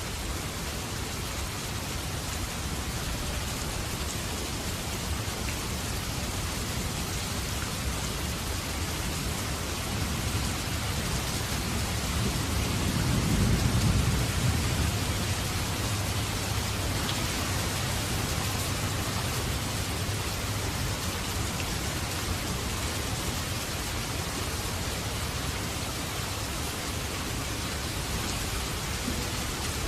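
Steady rain falling, with a low rumble of thunder that swells and fades about halfway through.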